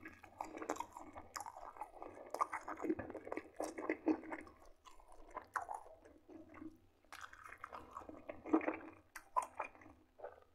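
A man chewing soft fried beef-liver cutlet with buckwheat and gravy: irregular wet chewing and mouth clicks, thinning out for a second or two midway before picking up again.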